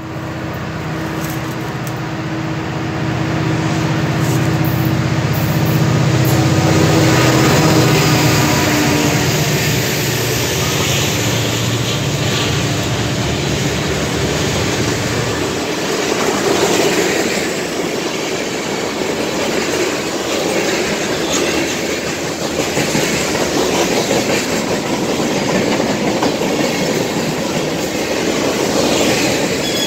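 CSX mixed manifest freight train passing: the diesel locomotives' engines run with a steady low hum for about the first fifteen seconds, louder around eight seconds in, then fade. After that comes the rumble and clatter of freight cars' wheels on the rails.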